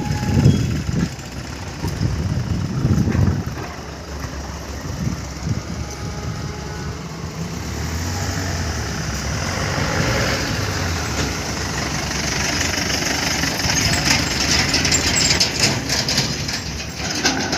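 Motor vehicle engine running, with a rushing noise that grows louder through the second half.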